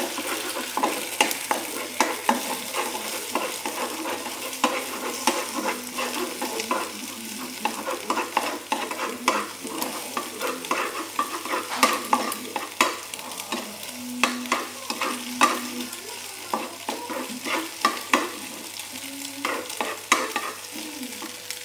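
Egg and noodles sizzling in a small frying pan as they are scrambled, with a utensil clicking and scraping against the pan many times.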